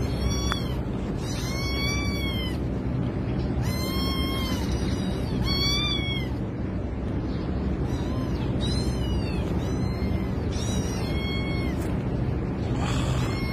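A kitten meowing in distress over and over, a high call that rises and falls each time, about every one to two seconds and more often in the second half, while it is being pulled out of a pipe it is stuck in. A steady low background noise runs beneath.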